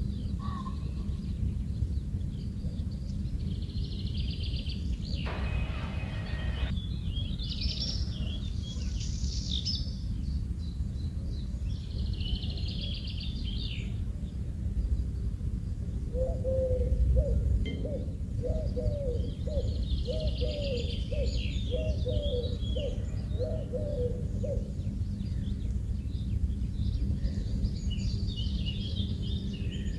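Birds chirping in short clusters every few seconds over a steady low rumble of background noise. A run of lower, wavering repeated calls comes in the middle.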